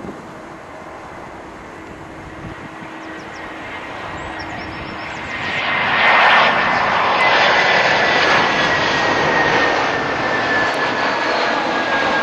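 Airbus A321-211 jet on final approach, its CFM56-5B turbofan engines growing louder as it passes close overhead about halfway through. A high engine whine then slowly falls in pitch as the jet moves away.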